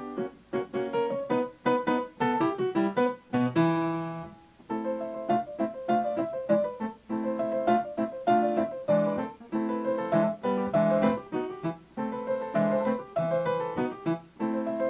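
Solo piano music: a steady flow of struck notes and chords.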